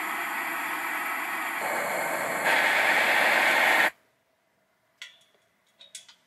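A loud, steady hiss that gets louder twice, then cuts off abruptly about four seconds in. Near silence follows, with a few faint clicks.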